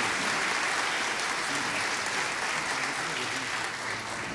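Concert hall audience applauding after the song, with a few voices in the crowd; the applause thins a little near the end.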